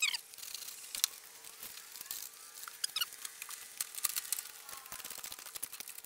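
Cloth rag rubbing and being handled on the mower's plastic shroud: a short squeak of cloth on plastic at the very start, then faint rustling and scattered light clicks over a faint steady hum.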